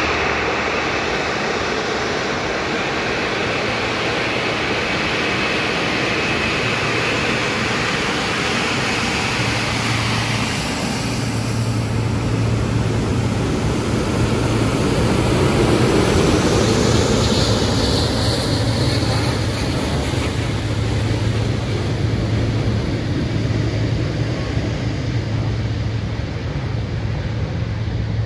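Boeing 777X's GE9X turbofan engines running at taxi power as the jet rolls past. The engine noise grows louder to a peak about halfway through as the aircraft draws level, then eases as it moves away. A high whine sounds just after the loudest point.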